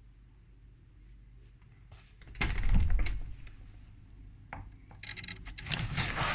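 Faint low hum, then rubbing and scraping noises: a loud one about two and a half seconds in that fades over a second, and a scratchy rustling stretch near the end.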